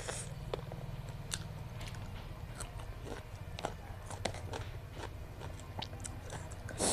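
Close-miked chewing and biting of food, with irregular sharp mouth clicks and smacks and a louder bite or crunch near the end.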